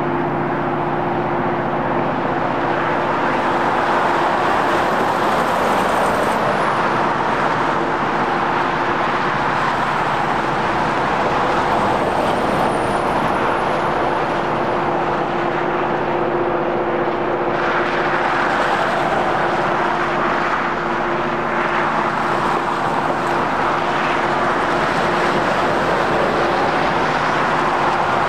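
Railway rotary snow plow train at work: a steady machinery hum under a loud rushing noise of snow being thrown, turning a little harsher about two-thirds of the way through.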